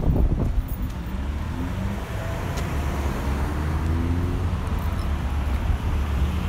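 2017 Yamaha YZF-R6's 600 cc inline-four engine running steadily at low revs through an aftermarket Akrapovic exhaust, with a deep, even exhaust note.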